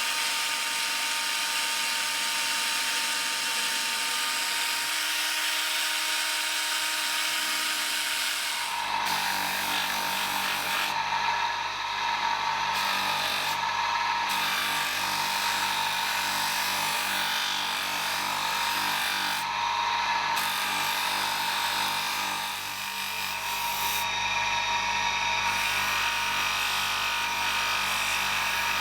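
An electric power tool running continuously as it works material, with a steady tone; about nine seconds in a deeper hum joins and the sound stays loud and even.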